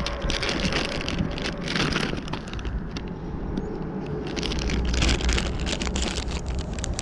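Clear plastic lure bags crinkling and rustling as they are handled, with wind rumbling on the microphone.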